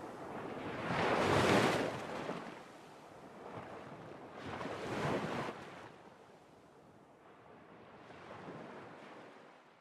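Sea surf: waves washing in as slow swells of hiss, three of them a few seconds apart, each fainter than the last, fading out.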